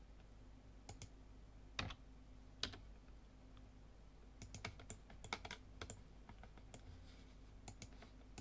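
Faint computer keyboard keystrokes and mouse clicks: a few single taps, then a quick cluster about halfway through and a few more near the end, over a low steady hum.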